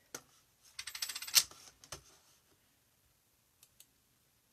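Light clicking and clatter: a single click, then a quick run of rapid clicks about a second in that ends in one sharp, louder click, another click shortly after, and two faint clicks near the end.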